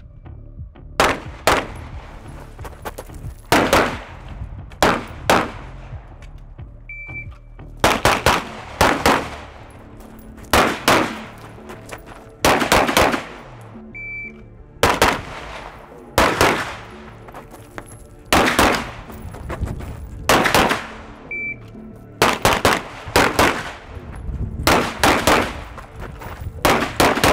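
Pistol shots fired in quick pairs, a fraction of a second apart, a dozen or so pairs in a row. A shot timer's short electronic beep sounds three times, and each beep starts a new string of shots.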